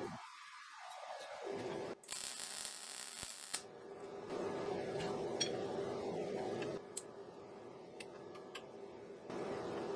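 A short hiss of about a second and a half, then a few sharp metal clicks as locking-plier clamps are set and handled on steel flat bar held in a bench vise.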